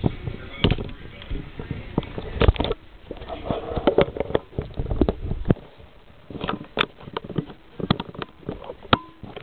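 Homemade motorised K'NEX camera stand being worked: irregular plastic clicks and knocks, with a faint steady motor hum near the end.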